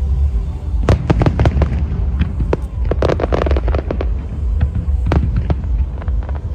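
Aerial fireworks going off: a continuous deep rumble of shell bursts under many sharp cracks and crackles, with dense clusters of cracks about a second in, around three seconds and again around five seconds.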